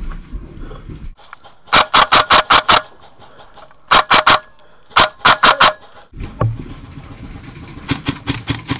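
Airsoft rifle firing close to the microphone: a quick string of about seven rapid shots, then two shorter strings a couple of seconds later.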